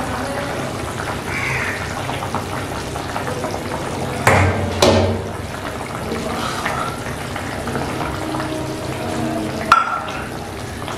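Thin ridge gourd and potato curry broth simmering at the boil in an open wok: a steady bubbling hiss. There are two sharp knocks about four seconds in and another near the end.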